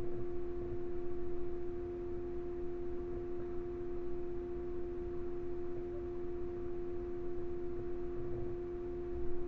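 A steady pitched hum, with faint low rustling underneath.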